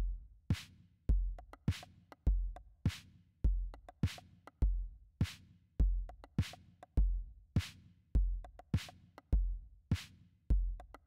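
Background music: a drum-machine beat, a deep kick and a sharp snare-like hit alternating about every half second, with lighter ticks between them.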